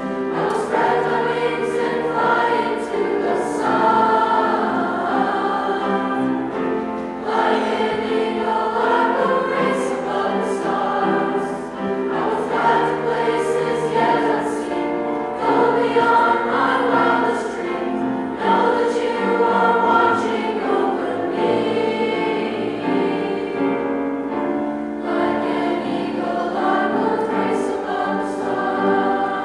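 Youth choir of boys' and girls' voices singing a choral piece with piano accompaniment.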